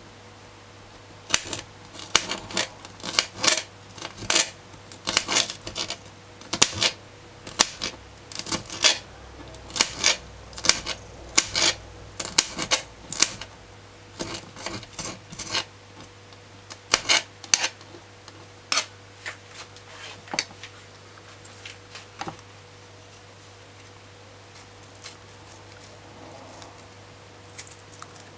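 Kitchen knife dicing green sweet pepper on a cutting board: quick, irregular knife taps on the board, about two or three a second. The chopping stops about three-quarters of the way through, leaving only a few faint taps.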